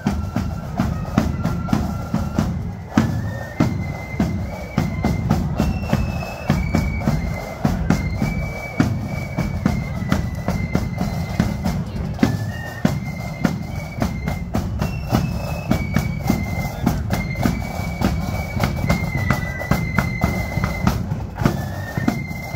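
Marching flute band playing a tune: a high, stepping melody line over steady snare and bass drum beats.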